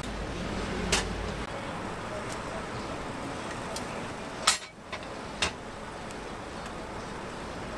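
Three sharp metal clicks of tongs against a wire rack as pastries are picked up, about a second in, the loudest one midway and another a second later, over a steady street background hum.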